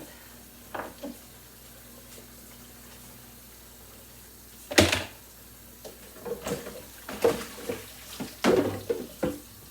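Kitchen sink clatter: a single sharp bang about five seconds in, then a run of knocks and clatters as a plastic refrigerator drawer is handled among dishes in the sink.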